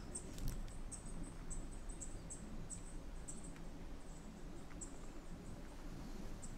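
Quiet bush ambience: faint, high, thin chirps repeating irregularly about twice a second over a low rumble of wind.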